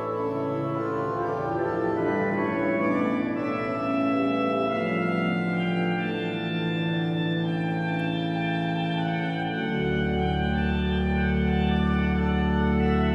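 Arp Schnitger pipe organ playing several interweaving lines of held notes. About ten seconds in, a deep pedal bass note enters beneath a sustained chord and the sound grows fuller.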